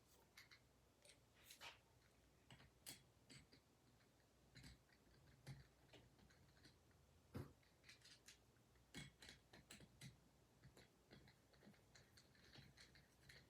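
Near silence broken by faint, irregular clicks and light taps from small metal vise parts being handled and fitted together by hand during reassembly.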